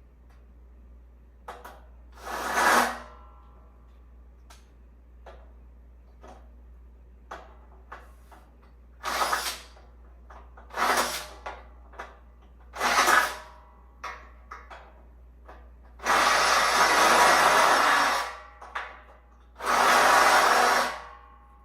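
A power drill-driver run in short bursts, tightening the bolts of a metal bed frame: four brief spins, then two longer runs of about two seconds near the end, with light clicks of hardware between them.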